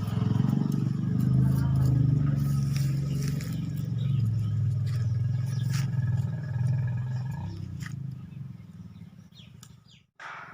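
A low, steady engine hum that fades away near the end.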